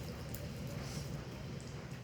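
Homemade slime being stirred and kneaded by hand, giving faint wet squishing and small sticky clicks over a steady low room rumble.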